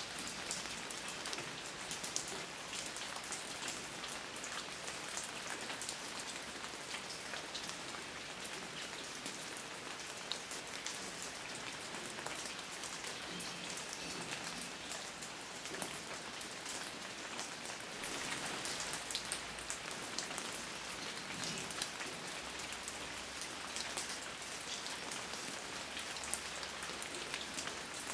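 Steady rain falling on a garden's shrubs and fallen leaves: an even hiss with a dense patter of individual drops, growing a little heavier for a moment about two-thirds of the way through.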